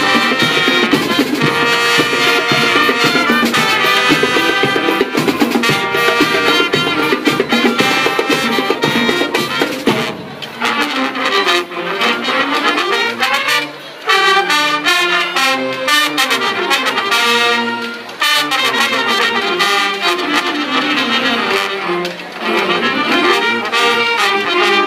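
Marching band of saxophones, trumpets and snare drums playing. About ten seconds in the full band thins out into a lighter passage of winding horn runs with sparser drumming.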